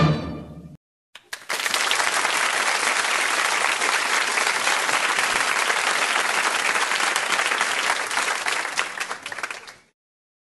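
Music fades out, then after a brief gap a crowd applauds steadily for about eight seconds, dying away near the end.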